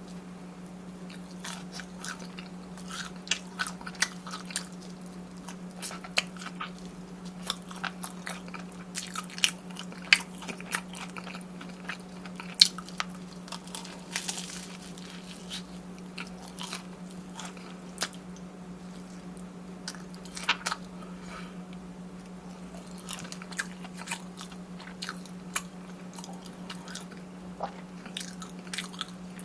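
Close-miked eating: repeated crisp crunches and chewing of fried batter snacks such as Korean corn dogs, with a steady low hum underneath.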